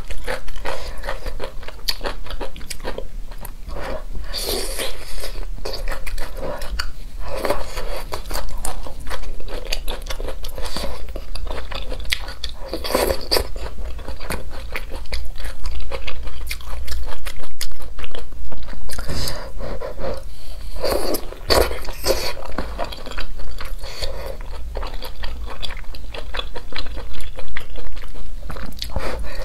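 A person eating close to the microphone: chewing and biting soft hot pot noodles and kelp, with many wet mouth clicks and smacks, louder in bursts through the middle and near the end.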